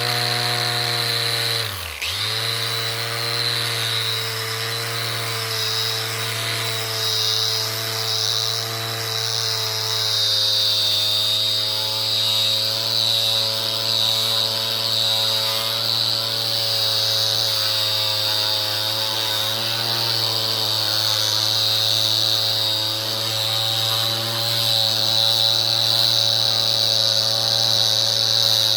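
Electric angle grinder fitted with a hook-and-loop sanding pad running steadily with a high whine while sanding wooden fence pickets; its speed dips briefly about two seconds in.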